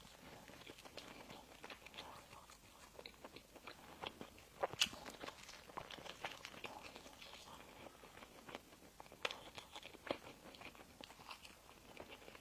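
Close-miked eating sounds: crisp bites and chewing of pastry, heard as scattered small crunches and clicks. The sharpest is about five seconds in, with another just past nine seconds.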